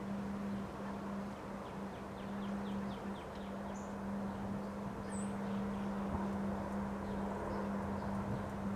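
Steady wind noise with a constant low hum under it. Small birds chirp over it: short high chirps every couple of seconds, and a quick run of notes about two to three seconds in.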